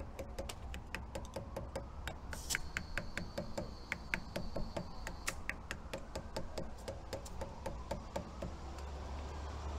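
Rapid, even clicking from a hand-held tyre inflator gun worked on the wheel's valve while the tyre pressure is set, with a thin high whistle for about three seconds in the middle.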